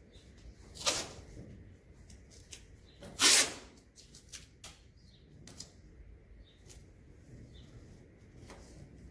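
Masking tape being unrolled and pressed along a car door panel: two short tearing rips of tape pulling off the roll, one about a second in and a louder one at about three seconds, between small taps and rustles of hands on the tape.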